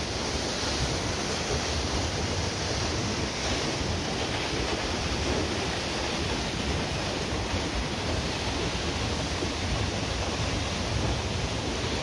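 Steady rush of water from the waterfall and river in the gorge below the suspension footbridge, with a low rumble of wind on the microphone.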